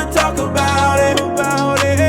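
Background music: an outro song with a bass line and drum hits.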